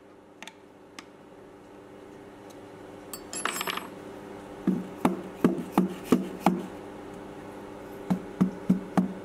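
Sharp knocks on a wooden CNC pallet, tapping it into line with the machine's X axis while it is dialed in against a test indicator: a quick run of about six taps, then four more near the end. A steady low hum runs underneath.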